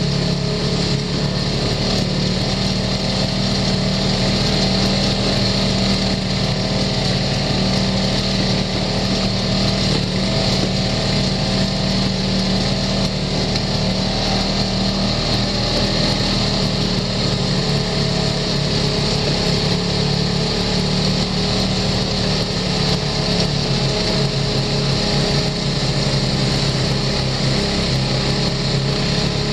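Side-by-side UTV's engine running steadily at trail speed, heard from on board the vehicle, a constant engine drone with no revving or breaks.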